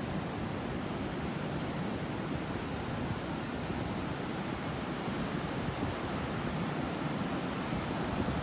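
Ocean surf breaking and washing steadily onto a sandy beach, a continuous rushing hiss.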